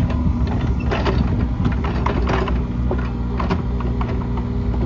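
John Deere 35G compact excavator's diesel engine running steadily while the machine works its bucket of dirt, with scattered clanks and rattles from the bucket and arm.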